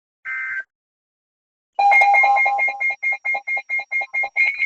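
A brief burst of EAS data tones closes the weather-radio warning message. About a second and a half later an electronic alert alarm starts beeping rapidly and loudly, about four beeps a second, with a low and a high tone sounding together.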